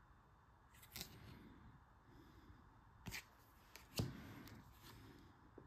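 Near silence broken by a few faint, brief rustles and taps of cardboard game cards being handled and slid past one another, about a second in and again near three and four seconds.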